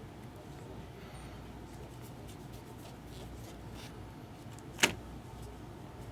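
Trading cards being handled and flipped, faint short rustles and slides over a steady low room hum, with one sharp click or tap near the end.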